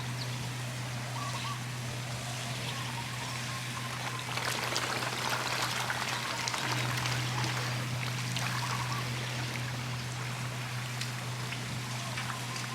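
Water splashing and trickling as a crowd of pond fish jostles at the surface, busier from about four to eight seconds in. A steady low hum runs underneath.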